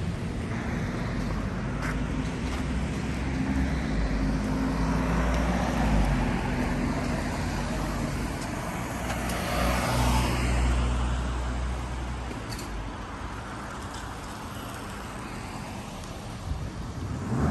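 Road traffic: vehicle engines running with tyre noise. It swells as a vehicle passes about ten seconds in, then eases.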